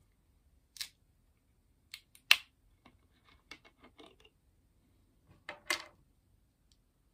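Cap of a plastic Pepsi soda bottle being twisted open by hand: a series of sharp clicks and short crackles, the loudest about two seconds in, a quick run of ticks past the middle and a longer crackle near the end.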